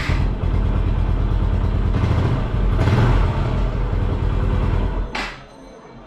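TVS Apache 180's single-cylinder engine running just after being started, picking up a little in the middle, then switched off about five seconds in.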